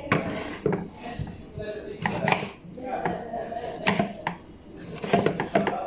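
Kitchen knife slicing tomatoes, the blade knocking sharply on a wooden cutting board at an uneven pace, several strokes.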